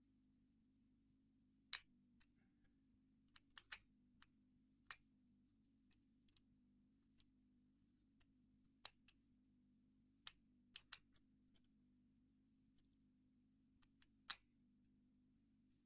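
Squire 660 padlock being picked with homemade metal picks: sparse, irregular small clicks and taps of the tools in the lock, a few of them sharper, about two seconds in and near the end.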